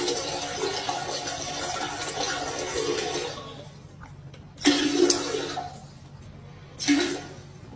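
Toilet flushing: a loud rush of water that stops about three seconds in, followed by two shorter rushing bursts.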